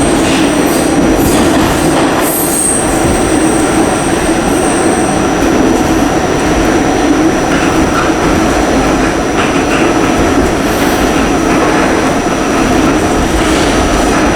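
Subway train running, a steady loud rumble, with a high wheel squeal over the first few seconds.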